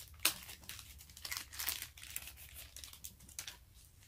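Plastic packaging rustling in a run of short, sharp crackles as a camera neck strap is pulled out of its wrapping inside a cardboard box.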